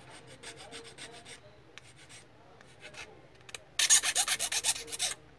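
Rapid rasping strokes of a file or abrasive on a small repaired plastic printer part, smoothing it down. The first strokes are faint. About two-thirds of the way in come a loud run of quick strokes, about nine a second, which stop just before the end.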